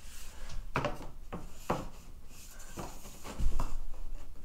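MDF door casing being handled and fitted against a door frame and wall: a series of light wooden taps and knocks with some rubbing, and a dull thump about three and a half seconds in.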